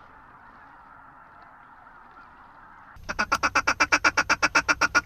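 A large flock of geese calling far off, a faint steady chatter of many birds. About three seconds in, this gives way to a loud, rapid, evenly spaced run of short calls, about nine a second, blown on a hunter's waterfowl call.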